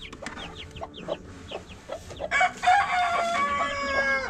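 Chicks peeping in short, quickly repeated falling chirps, and a little over two seconds in a rooster crows: one long call that is the loudest sound.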